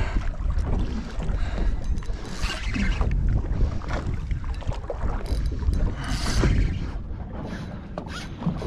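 Wind buffeting the microphone with a steady low rumble, over water washing against a small boat's hull, with a few short clicks and two brief louder surges of noise.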